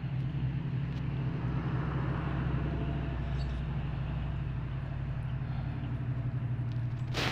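A steady low hum with a fast flutter through it, like a motor running. A short breathy burst comes at the very end.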